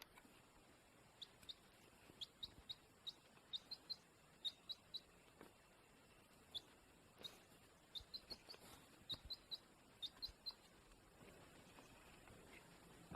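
Baby chick peeping: short, high cheeps, singly and in quick runs of two to four, with gaps of a second or so between runs.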